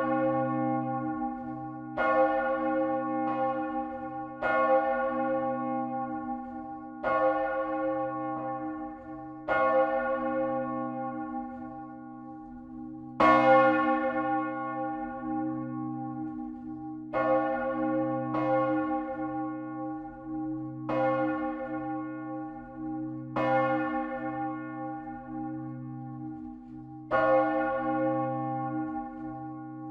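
A church's great bell swinging in full peal, heard close up inside the belfry. The clapper strikes about thirteen times at uneven intervals, each stroke ringing out over a low hum that carries on between strokes.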